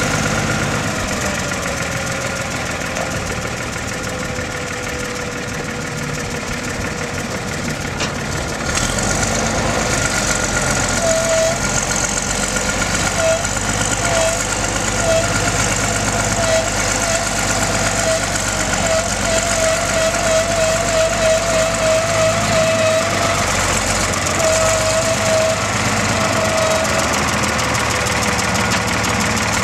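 1968 Caterpillar 12F motor grader's diesel engine running as the machine moves, with a steady whine over it. From about eleven seconds in, a run of short repeated chirps comes faster and faster, then stops a few seconds before the end.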